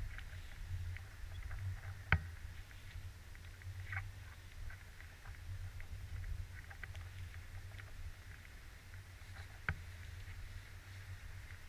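Outdoor ambience by the sea: a low, uneven rumble with scattered faint ticks, and two sharper clicks, one about two seconds in and one near the end.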